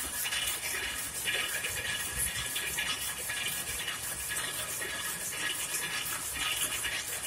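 Converted rapier loom with a tuck-in selvedge device running, a fast, steady mechanical clatter of its weaving cycle.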